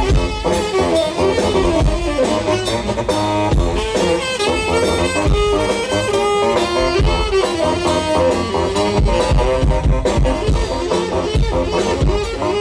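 Live saxophones and drum kit: quick, shifting saxophone melody lines over a busy, steady drum groove.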